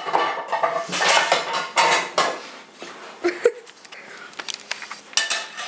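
A white bowl being handled, with clattering and scraping, loudest in the first two seconds; after that come quieter knocks, with one sharp click, then louder clatter again near the end.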